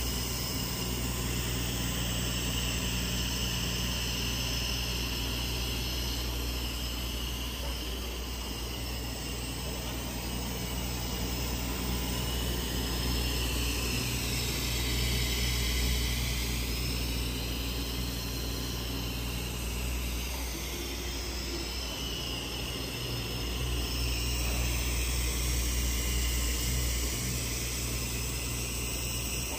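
CNC oscillating-knife cutting machine working through a sheet of leather: a steady low machine hum under a higher whine that rises and falls smoothly in pitch as the cutting head moves.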